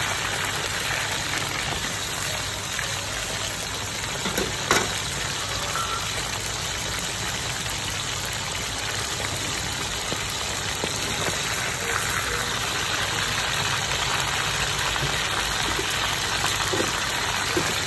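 Hot oil sizzling and bubbling steadily as peacock eels deep-fry in a wok, with a steady low hum underneath. A couple of sharp knocks come about four to five seconds in.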